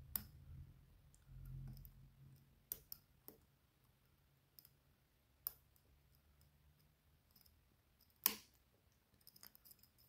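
Small metal clicks of a hook pick and tension wrench working the pin stack of a BKS Kurzzylinder 5-pin profile cylinder: scattered single clicks with the loudest about eight seconds in, then a quick run of faint ticks near the end.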